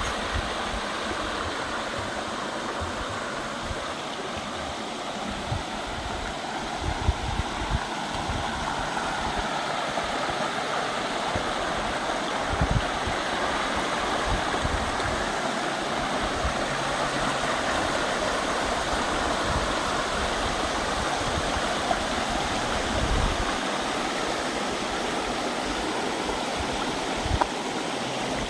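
Waterfall's rushing water, a steady, even hiss, with occasional brief low thumps.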